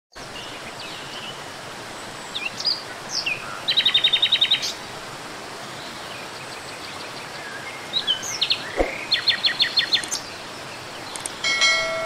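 Songbirds chirping and trilling over a steady rush of falling water. One bird gives a fast run of about ten clipped notes about four seconds in, and again about nine seconds in. Near the end a bright chime rings out.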